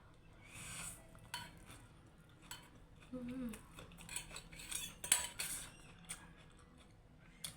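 Eating utensils clinking and scraping against a dish in light, scattered knocks while noodles and momo are eaten, with a short low hummed 'mm' about three seconds in.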